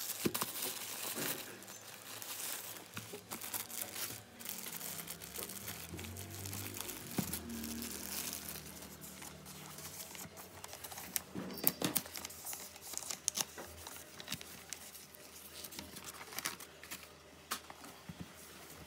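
Gift wrapping paper crinkling, rustling and tearing as a present is unwrapped by hand, with a few sharper clicks and taps from the package being handled around the middle.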